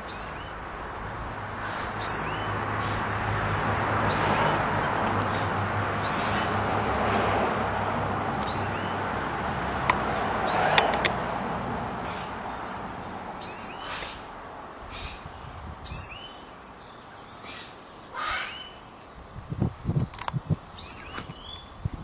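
A small bird chirping over and over, short high falling calls about every one and a half to two seconds, over a rumbling noise that builds and then fades in the first half. A few low thumps come near the end.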